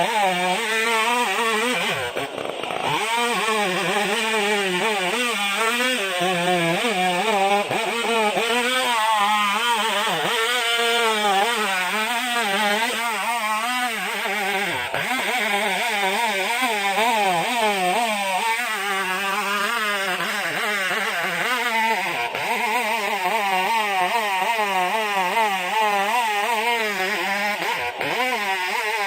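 Chainsaw engine running under load while cutting, its pitch rising and falling over and over as the saw bites and revs.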